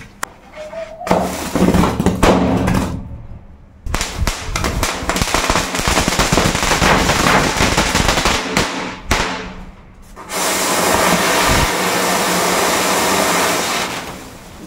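Diwali fireworks lit by a burning matchstick chain: fizzing, crackling bursts of sparks for several seconds. From about ten seconds in, a spark fountain gives a steady hiss that dies away near the end.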